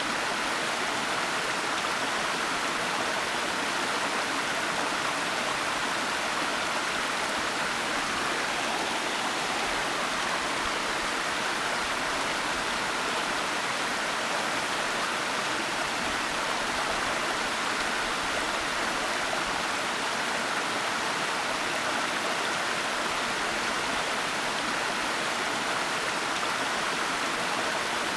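Waterfall, water rushing and splashing in a steady, unbroken noise.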